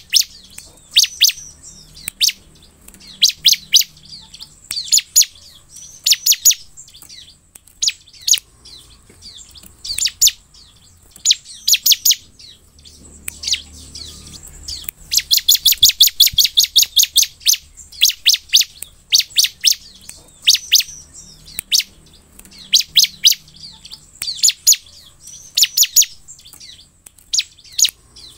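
Bar-winged prinia (ciblek) singing: short bursts of sharp, high chip notes repeated about once a second, with a longer rapid trill about halfway through.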